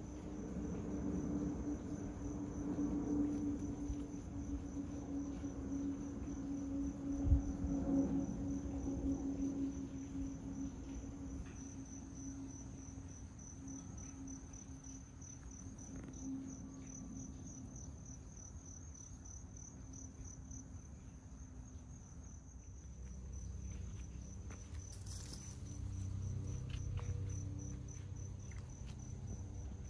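Insects keep up a steady, rapidly pulsing high trill while a twin-engine jet airliner passes overhead, its distant engine rumble fading away over about twenty seconds. There is a single thump about seven seconds in.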